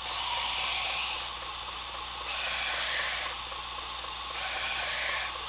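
Belt grinder with a 45X Norax abrasive belt running as a knife edge is ground on it in three passes, each about a second long and about two seconds apart, over the steady hum of the grinder's motor. The passes are sharpening the edge and raising a wire edge (burr) along the blade.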